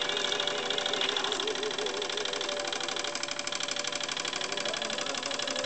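Vintage late-1970s Wilesco live-steam stationary engine running at speed, with a fast, even chuffing and clatter from its cylinder and flywheel.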